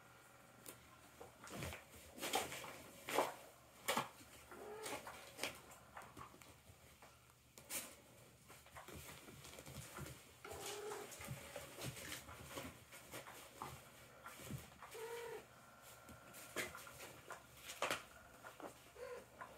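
Kittens scrabbling and pouncing on a rustling fabric cat toy, giving scattered taps and scratches, with a few short, low kitten calls.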